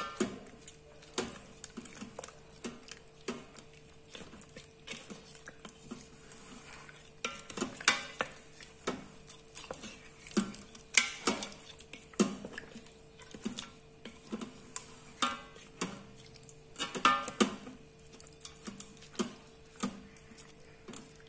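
Wooden spoon stirring chicken curry in a stainless steel Instant Pot inner pot, knocking irregularly against the metal sides and bottom with short ringing clinks. A faint steady hum runs underneath.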